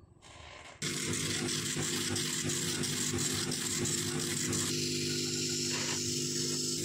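CO2 laser cutting machine running as it cuts thin MDF: a steady machine hum with a hiss over it that starts abruptly about a second in. About two-thirds of the way through, part of the hiss drops away while the hum carries on.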